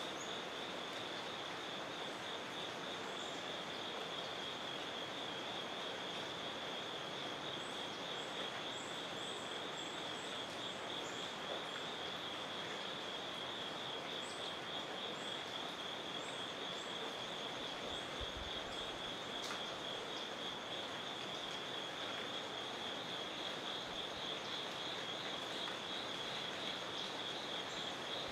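Steady insect chorus, a continuous high pulsing trill, over an even background hiss, with faint short high chirps now and then through the middle.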